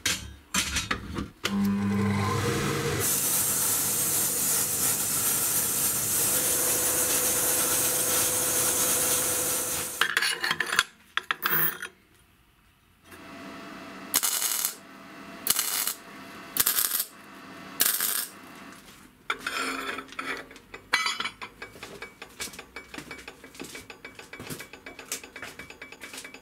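Metalworking: a power tool spins up and runs steadily under load for about seven seconds. It then gives about five short bursts of under a second each, followed by light knocks and clinks of metal.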